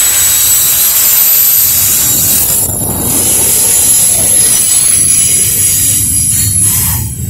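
Double-stack intermodal container cars rolling past: a loud, steady rumble of steel wheels on the rails, with a thin high-pitched wheel squeal held throughout.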